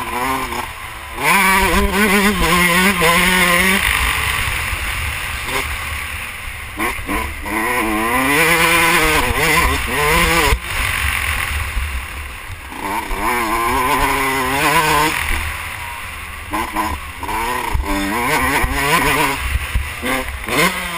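Yamaha YZ125 two-stroke motocross engine at high revs under hard acceleration. Its pitch climbs and drops again and again as the rider goes up through the gears and rolls off. Wind buffets the helmet-mounted microphone.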